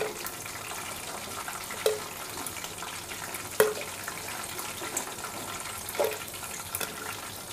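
Chicken pieces frying in hot refined oil in a pan, a steady sizzling hiss, with metal tongs clinking four times as the pieces are lifted out.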